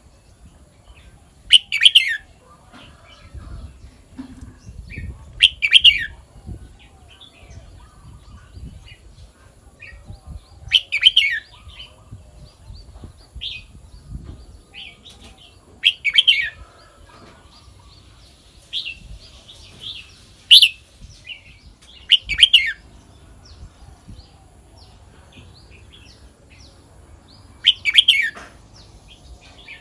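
Red-whiskered bulbul singing short, loud, whistled phrases about every five seconds, with softer chirps in between.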